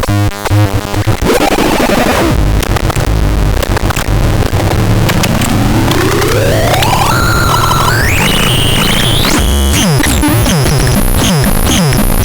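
Synthesizer sound effects: a noise wash, then a tone sweeping upward in steps for about four seconds, then rapid repeated falling zaps with a pulsing high tone from about ten seconds in.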